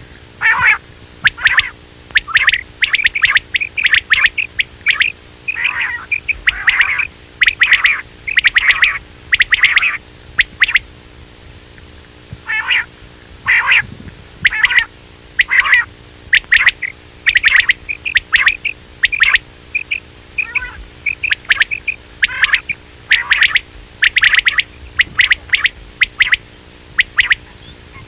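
Recorded quail calls used as a hunting lure: rapid series of short, sharp calls, with a brief pause about halfway through, over a faint steady hum.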